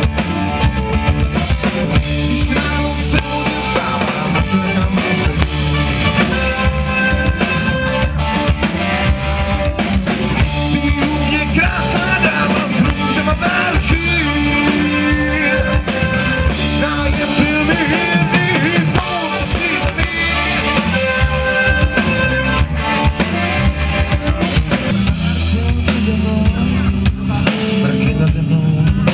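Live rock band playing through stage speakers: a drum kit keeping a steady beat under electric bass and guitars.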